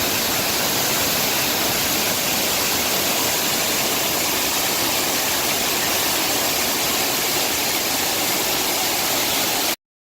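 Waterfall rushing, a steady loud wash of falling water with no pitch to it, that cuts off suddenly near the end.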